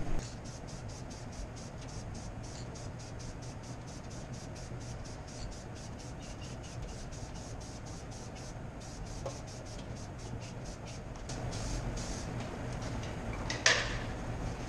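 An aerosol can of Rust-Oleum matte clear enamel being shaken, its mixing ball rattling at about four clicks a second, with a short break partway through. A single louder sound comes near the end, over a steady low hum.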